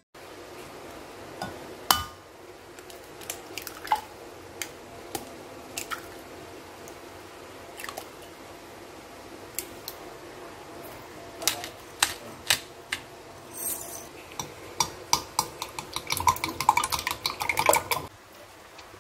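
Eggs being beaten in a glass measuring jug, with a rapid run of clinks from the utensil striking the glass for a few seconds near the end. Before that come scattered single taps and clicks of kitchenware.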